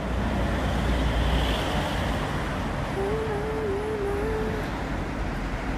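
Street traffic noise: a passing vehicle's low rumble and rushing noise swell over the first two seconds, then ease to a steady traffic hum. A faint wavering whine runs through the middle.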